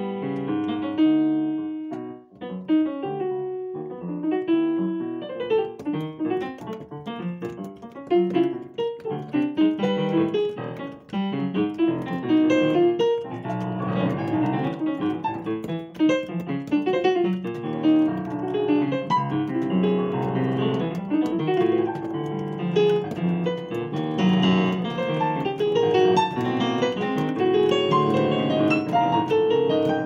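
Digital piano played with both hands, a busy run of overlapping notes and chords. It starts fairly sparse and turns fuller and denser about halfway through.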